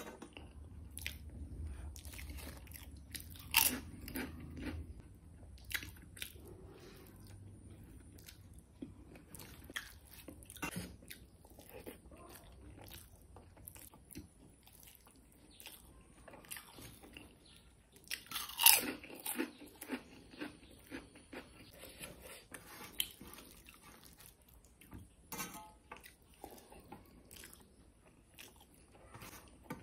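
Close-up eating sounds of a person chewing a mouthful of rice eaten by hand, with many short wet clicks and smacks. Two louder sharp sounds come about 4 and 19 seconds in.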